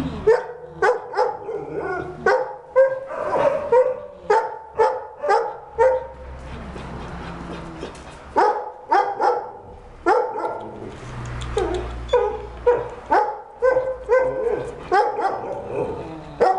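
A dog barking over and over, about two barks a second, with a break of a couple of seconds midway.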